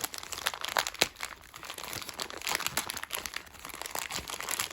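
Plastic packaging crinkling in the hands: a dense run of small crackles as the spinning-top toy's parts are unwrapped.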